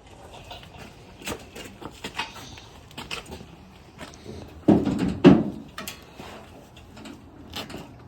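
Scattered light knocks and clicks of parts being handled, with two louder clunks about five seconds in.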